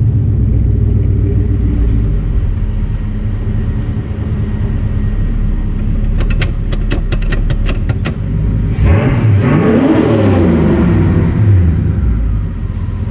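Turbocharged 4.6 V8 of a Lincoln Town Car running with a low, steady rumble while driving. A quick run of sharp clicks comes a little past six seconds. About nine seconds in the engine is pressed hard, its note rising and falling with a rushing turbo hiss over it, then it eases off near twelve seconds.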